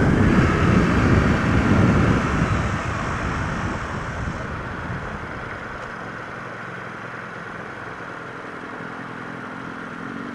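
Ducati Monster 695 L-twin motorcycle under way, its engine mixed with wind noise on the microphone. It is loudest for the first few seconds, then eases to a quieter steady drone.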